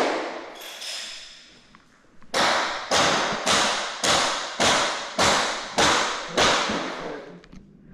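Hammering: a heavy blow fading out at the start, then after a short pause eight even, sharp strikes at a steady rhythm of nearly two a second, each ringing briefly.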